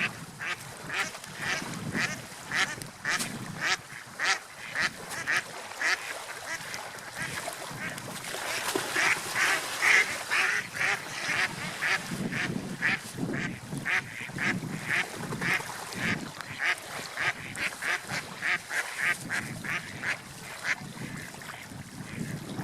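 Ducks quacking in a rapid series of short calls, about two or three a second, loudest and busiest around the middle.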